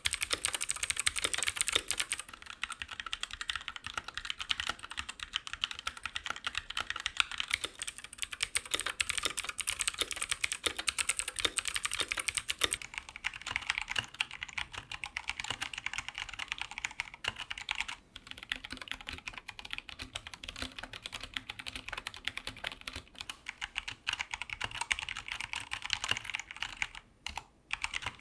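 Continuous fast typing on Keychron wireless mechanical keyboards with Gateron switches: a dense stream of key clicks and clacks. The tone of the typing changes about two seconds in and again about halfway through.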